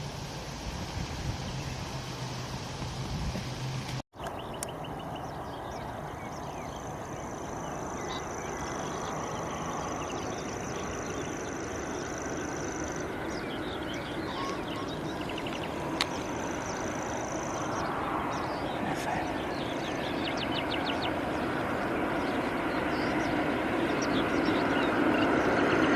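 Birds chirping over a steady high-pitched buzz that comes and goes, with a low rumble growing louder toward the end.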